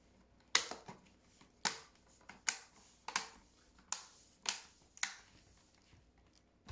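The plastic screen bezel of a Dell XPS 15 L502X laptop being pressed back onto the lid, snapping into its clips with about seven sharp clicks, spaced half a second to a second apart, stopping about five seconds in.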